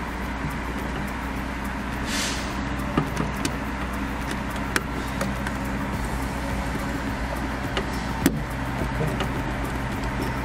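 Steady low machinery drone, with a few small sharp clicks and a brief rustle as a screwdriver works a screw terminal on a DIN-rail terminal block.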